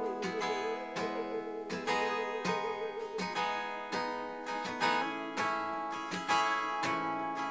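Folk band music between sung lines: acoustic guitar strumming steadily under held notes. For the first three seconds or so a wordless voice imitates a musical saw, holding a wavering note with heavy vibrato.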